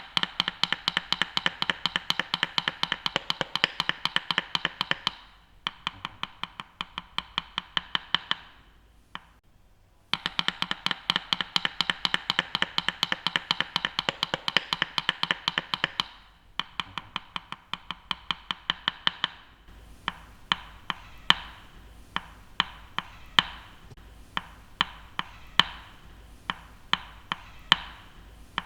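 Kitchen knife chopping on a cutting board: fast, even runs of chops that slow and stop, a short pause, another fast run, then slower single chops about two a second.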